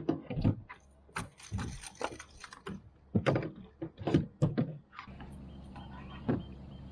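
A string of irregular sharp clicks and knocks, about a dozen, with a steady low hum setting in about five seconds in.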